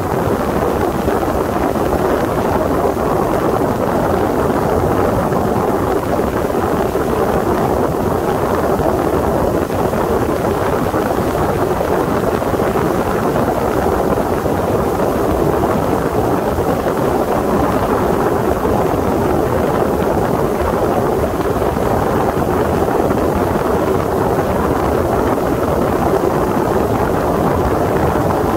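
Sea Ray 21 MC motorboat under way at speed: a steady rush of wind on the microphone and water along the hull.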